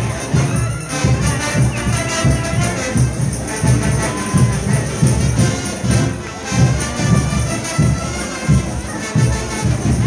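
Frevo street band playing, with brass lines over a steady drum beat.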